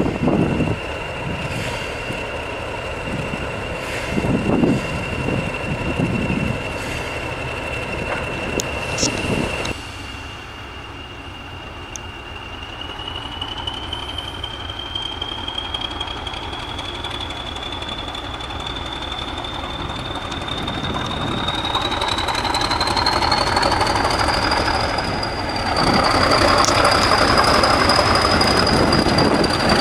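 British Rail Class 40 diesel locomotive 40106, its English Electric 16-cylinder engine giving the class's high turbocharger whistle. The whistle holds a steady pitch at first, then rises slowly as the engine opens up and the locomotive comes nearer. Near the end the engine and wheels grow loud as it passes close with its coaches.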